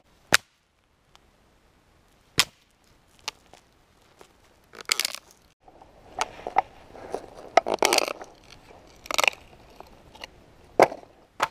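Dry pine branches being snapped and firewood handled: sharp single cracks spaced out over the first few seconds, then a denser run of crackling and crunching from about halfway through.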